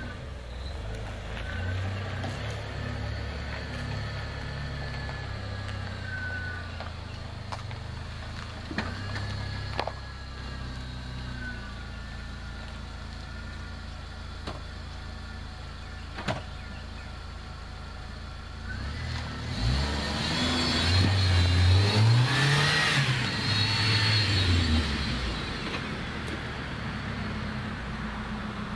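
Jeep Wrangler's engine running under load on a dirt hill climb. About two-thirds of the way through it revs up hard and falls back again over several seconds, the loudest part. A couple of sharp knocks come earlier.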